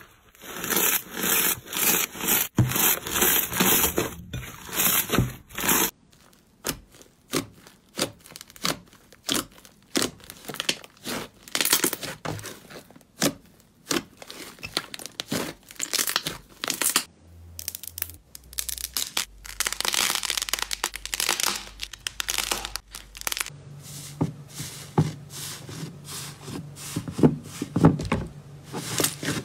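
Hands squeezing, stretching and poking soft fluffy slime, making dense crackling and many sharp sticky pops.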